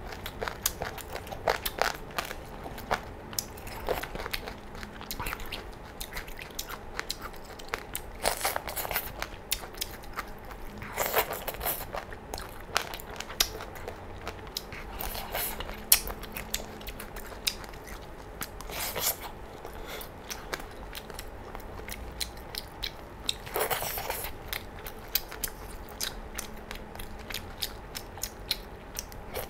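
Close-miked chewing of crunchy chicken feet in Thai-style sauce: a steady stream of sharp, crackling crunches, with louder bites every few seconds.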